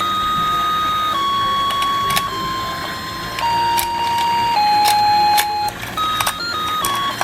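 Battery-operated toy fishing game running: its motor whirs under a simple electronic tune of held beeping notes that step down in pitch, each lasting about half a second to a second, then quicker notes near the end. Light plastic clicks come through now and then.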